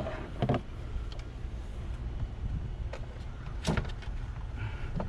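A few sharp knocks and clicks of intake parts and a clamp being handled and worked loose in a car's engine bay, over a steady low rumble. There is a short squeak near the end.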